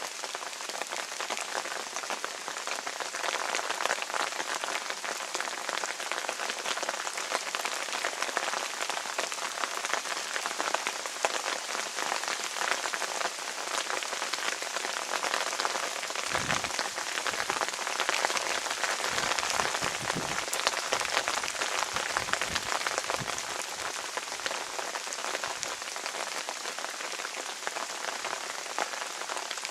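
Steady rain falling, with dense fine drop hits on a nearby surface. A few low bumps come a little past the middle.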